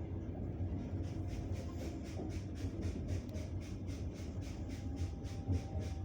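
Passenger train running on the rails, heard from inside the carriage: a steady low rumble with a rapid, regular run of short high hissing pulses of about five a second from about a second in. A thin steady whine from the rails joins it about halfway through.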